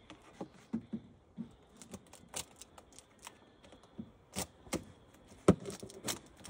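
Wooden beehive frames and box parts being handled: a run of irregular light clicks and knocks, with a sharper knock about five and a half seconds in.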